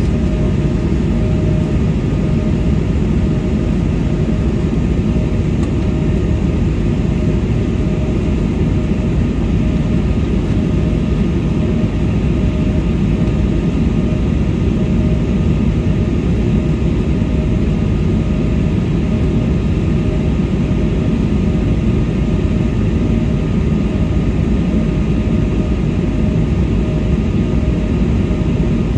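Steady cabin noise of an Embraer 195-E2 airliner in flight, heard from a window seat: a constant low rush of jet engine and airflow noise with a thin steady tone running through it.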